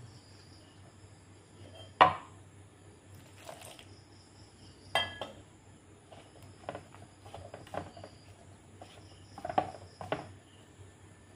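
Scattered clinks and knocks of a hand against a metal mixing bowl as flour is mixed into dough, the sharpest about two seconds in, with a cluster of lighter ones near the end. Crickets chirp faintly underneath.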